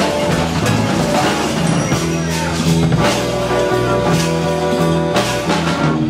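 Live band playing a steady beat on drum kit, with electric guitar and keyboard, and held low notes under the drums.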